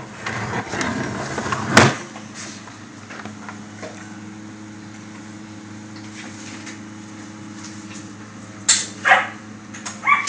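Rustling handling of the cable box and camera, ending in a sharp click about two seconds in, then a steady low hum. Near the end there is a sharp knock and two short, sharp calls.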